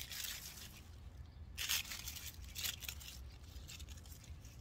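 Cucumber vines and leaves rustling and tearing as they are pulled down from the trellis by hand, in a few short dry bursts, the loudest about a second and a half in. A steady low rumble lies underneath.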